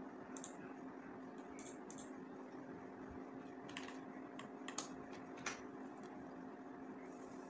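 A handful of scattered clicks from a computer keyboard and mouse, over a steady faint hum.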